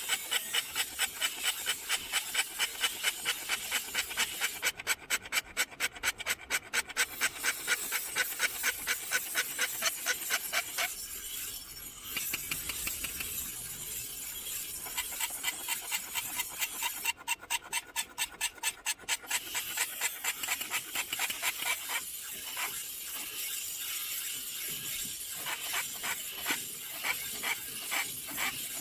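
A metal file rasping back and forth on a sickle blade in fast, even strokes, about four or five a second. It stops for a few seconds, runs again, then goes on as slower, fainter strokes near the end.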